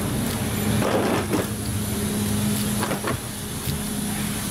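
Steady machinery hum with one constant low tone and a rumble, heard inside an airport jet bridge. A few brief knocks come about a second in and again around three seconds.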